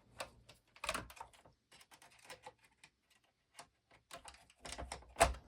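Scattered light clicks and taps of a screwdriver and small parts on a game console's plastic casing during disassembly, with sharper knocks about a second in and near the end.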